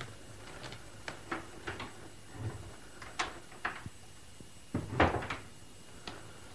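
Radio-drama sound effects of footsteps crossing a room to a door, then the door being opened and worked, its latch and wood clattering loudest about five seconds in.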